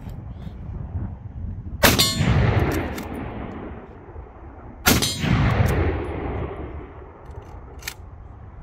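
Two rifle shots about three seconds apart, each followed by a long echoing rumble that dies away over a second or more. A short sharp click comes near the end.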